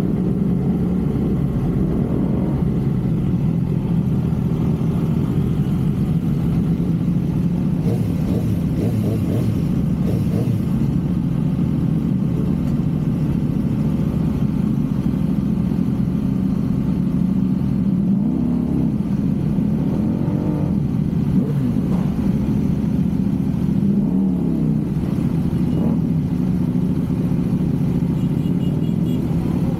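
Motor vehicle engine running steadily during a ride, with a constant low rumble and a few slight changes in engine pitch.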